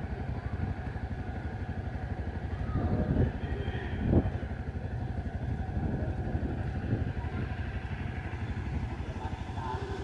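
Motorcycle engine idling steadily with an even, pulsing beat, with two louder knocks about three and four seconds in.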